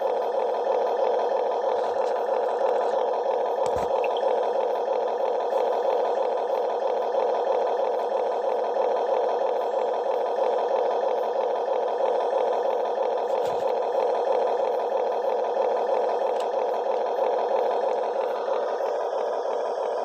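Steady whir of a Huina RC construction toy's small electric motors and gearing running continuously, with two faint knocks, and easing off slightly near the end.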